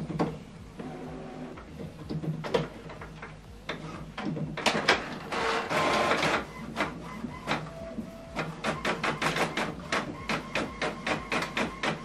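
HP Envy Inspire 7220e inkjet printer printing a test page: scattered clicks, a louder whirring stretch about five seconds in, then a fast run of evenly spaced strokes, about three a second.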